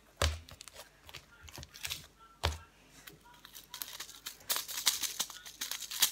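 Slime being handled on a glass table top: two soft thuds as the lump lands, then a run of small crackling, crinkling clicks as fingers work at it.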